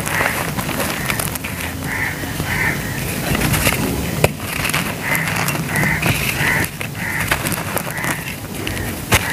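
Dry lumps of a sand-and-cement mix crumbling in the hands: a dense crackling crunch with sharp little snaps as pieces break, and grains pouring and pattering down. A crow caws over it in a repeated series.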